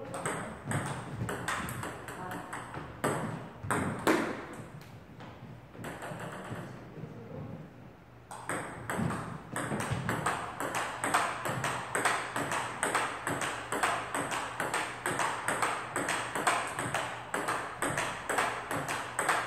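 Table tennis rally: the celluloid-type ball clicking off the rubber-faced paddles and bouncing on the table in a quick, regular rhythm, with a brief lull about eight seconds in before the clicks run on steadily.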